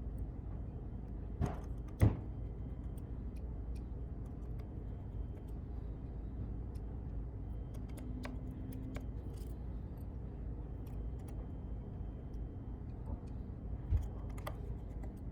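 Small metallic clicks and taps of a precision screwdriver working screws out of an iPhone's display connector plate. They are scattered, with a sharper click about two seconds in and another near the end, over a steady low hum.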